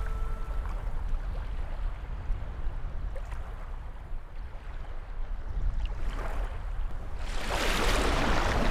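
Shallow waves washing over a sandy shore, with a louder rush of surf building up about seven seconds in.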